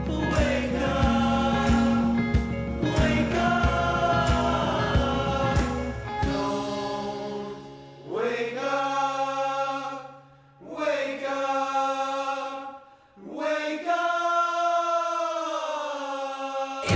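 Recorded indie pop music: the full band with drums plays until about six seconds in, then the drums drop out and layered, choir-like sung phrases follow in short bursts with brief pauses, over a held low note.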